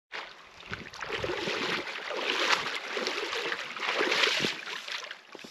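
Shallow water sloshing and splashing around a wader's legs and boots, in an irregular run of small splashes that swells and eases.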